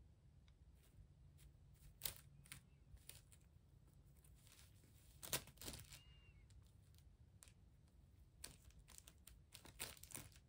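Thin clear plastic bag crinkling in brief, scattered bursts as a cat paws at it. The loudest bursts come about two seconds in, around five and a half seconds in, and in a cluster near the end.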